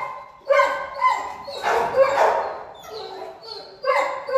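Dog barking repeatedly, a run of about five or six short, high-pitched barks and yips.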